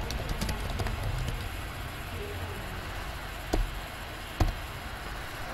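Computer keyboard typing: a few light key clicks in the first second or so, then two louder sharp clacks about three and a half and four and a half seconds in. A steady hiss and low hum run underneath.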